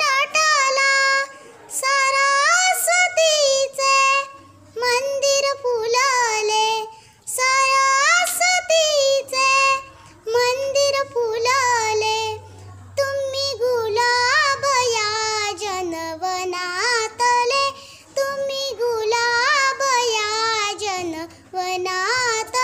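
A young girl singing a Marathi welcome song alone, without accompaniment, in short melodic phrases with brief breaks for breath.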